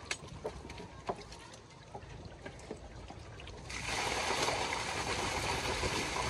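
Scattered light knocks, then water running and splashing that starts suddenly about four seconds in and carries on steadily.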